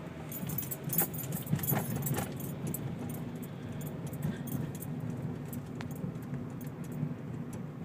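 Inside a Honda Fit while it drives and turns: the engine and tyres make a steady low drone, and keys jingle with irregular light clicks, mostly in the first two seconds or so.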